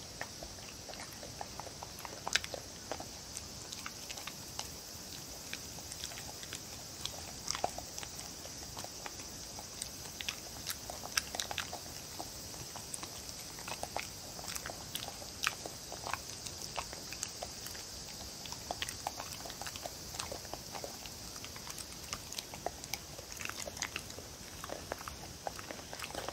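A dog chewing and mouthing soft food (tofu cubes, potato and egg yolk) off a wooden board, with irregular small clicks and smacks of teeth and tongue throughout.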